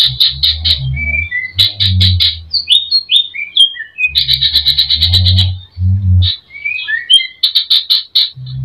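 Green leafbird (cucak ijo) singing hard: fast runs of repeated sharp chirps broken by short whistled notes that glide up and down, a song full of mimicked calls of other birds. A low rumble sits beneath the loudest runs.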